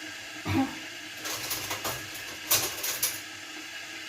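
Household objects being handled: a short knock about half a second in, then a couple of seconds of rustling and clattering, sharpest about two and a half seconds in.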